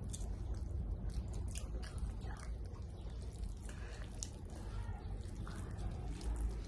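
Close-up eating sounds: chewing with many small wet mouth clicks and smacks, scattered irregularly over a steady low hum.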